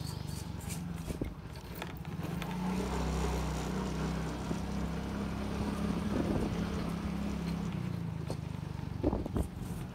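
Motorcycle engine running steadily while the bike is ridden, with a slight change in engine note about eight seconds in and a couple of knocks about a second later.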